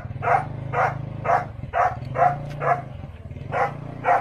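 A dog barking over and over, about two barks a second with a short pause midway, above a steady low hum.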